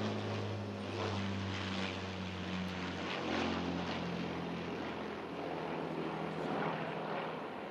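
Avro Lancaster bomber flying past, its four Rolls-Royce Merlin piston engines making a steady deep drone that begins to fade near the end.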